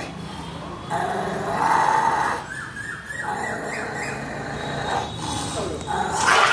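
Pit bull vocalizing at a gate: high whining squeals mixed with growls, loudest about a second and a half in and again near the end.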